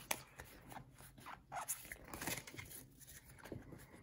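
Pokémon trading cards being handled in a small stack, cards slid and flicked through the hands: faint, scattered clicks and rustles of card stock.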